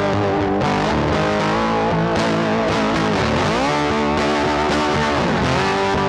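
Guitar-led background music, with several notes bending up and down in pitch around the middle.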